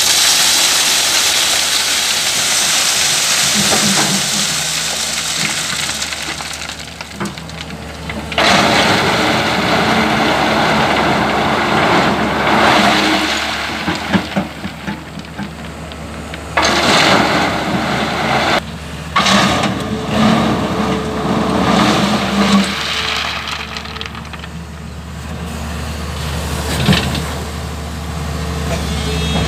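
LiuGong crawler excavator's diesel engine running steadily while its bucket dumps river gravel and stones onto a steel mesh screen, a long rattling rush of stones. Further loads pour and scrape in shorter bursts later on.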